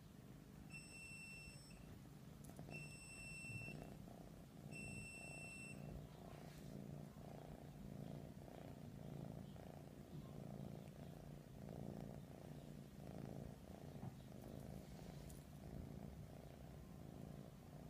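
Persian cat purring steadily and quietly. Three high electronic beeps, each about a second long and about two seconds apart, sound over the purring in the first six seconds.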